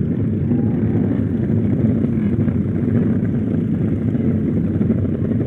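Motorcycle engine running steadily while riding, mixed with heavy low rushing noise from wind on the microphone.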